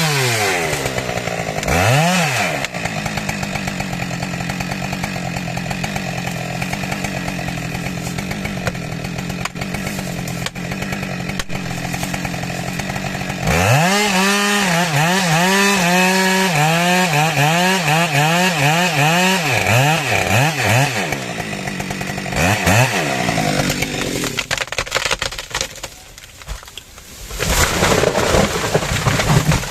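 A small engine running at high speed. About halfway through it is revved up and down over and over, roughly once a second. It drops quieter briefly near the end, then runs loud again.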